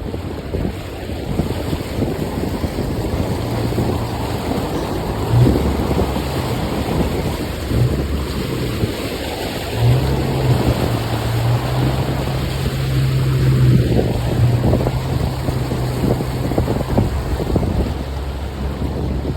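Jeep Wrangler driving off-road, its engine a steady low drone in stretches, with frequent knocks and rattles over rough ground. Wind buffets the microphone throughout.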